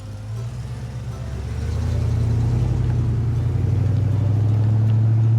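Car engine running with a low, rapidly pulsing hum that swells louder about two seconds in, as if accelerating toward the listener, then holds steady.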